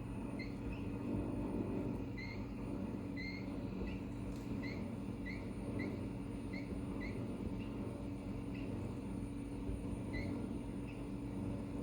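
Samsung dishwasher running with a steady low hum, over which come about a dozen short, rising high-pitched squeaks at irregular intervals. The owner regards the noise as a horrible fault in a lemon machine.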